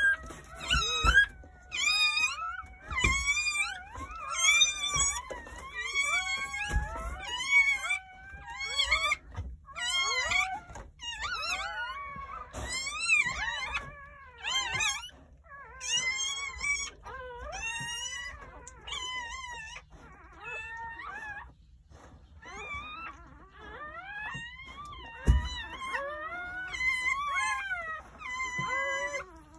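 Newborn Jindo puppies crying: a steady run of short, high squeals that rise and fall in pitch, several a second. A single dull thump sounds near the end.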